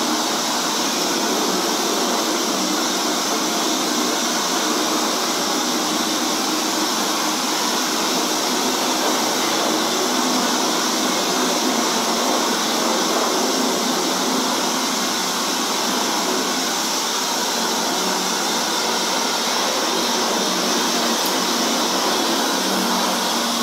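Hand-held electric hair dryer running with a steady rush of air, blowing onto a freshly washed-out silk-screen frame to dry the mesh and stencil.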